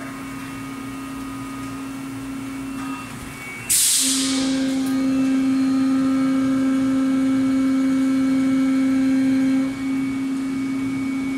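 PET preform injection moulding machine running through its cycle: a steady hum from its hydraulic drive. About three seconds in the hum drops away and a sudden loud hiss follows. The hum then comes back louder and eases down a step about ten seconds in.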